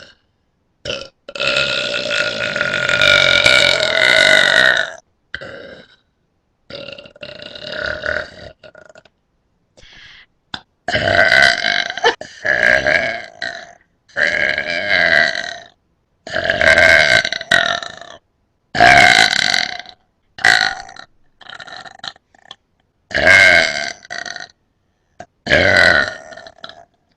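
A person belching loudly again and again: a long drawn-out belch of about four seconds, then about nine shorter ones every second or two.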